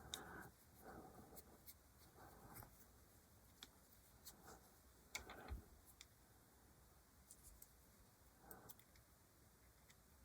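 Faint handling sounds, a few small clicks and several brief scrapes, as a small bit is fitted into the chuck of a small handheld rotary tool and tightened.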